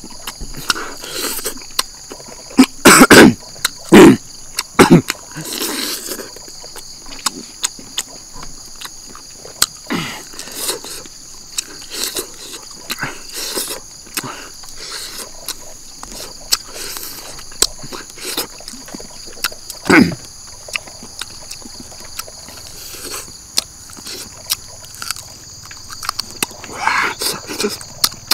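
Close-up eating sounds: chewing and lip-smacking with short clicks as barbecued duck meat is pulled off the bone and eaten by hand, with a few loud throaty sounds about three to five seconds in and again near twenty seconds. Insects chirr steadily in the background.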